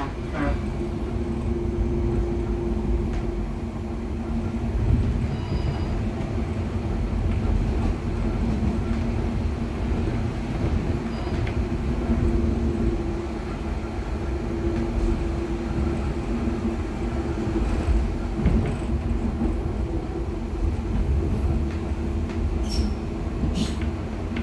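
Inside a moving H5 HÉV suburban electric train car: a steady low rumble of the wheels and running gear, with a humming tone that comes and goes. Two sharp clicks sound near the end.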